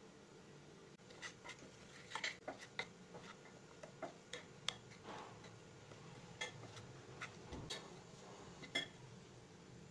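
Faint, irregular clicks and taps of a mixing utensil against a glass bowl as flour is stirred into creamed butter and sugar, beginning about a second in.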